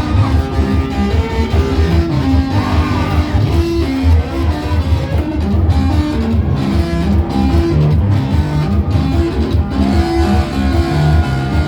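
Band music led by guitar over a walking bass line with a steady beat.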